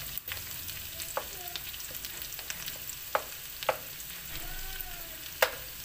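Minced garlic and onion sizzling in hot oil in a wok, stirred with a wooden spatula that knocks against the pan a few times, loudest near the end.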